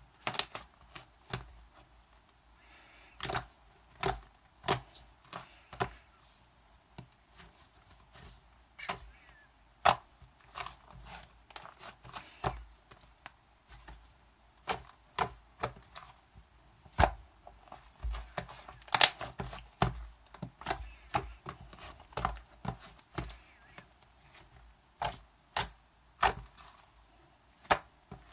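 Cloud slime being squeezed and poked by hand, giving irregular sharp clicks and pops, some much louder than others.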